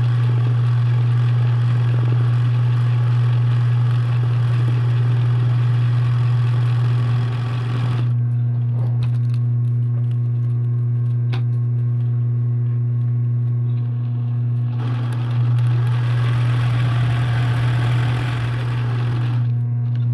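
Embroidery machine running with a steady motor hum. Its higher mechanical noise drops away for several seconds in the middle and then comes back.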